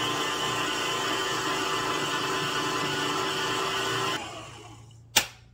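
Electric mixer running steadily as it beats chocolate buttercream frosting, then switched off about four seconds in and winding down, followed by a single sharp knock near the end.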